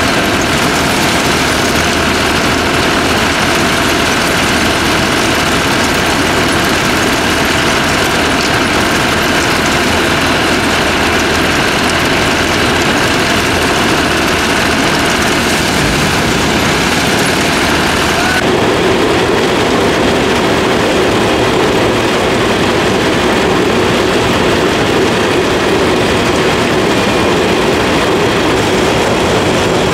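John Deere rice combine harvester running steadily, its engine and threshing machinery giving a loud continuous drone. The character of the sound shifts abruptly about eighteen seconds in.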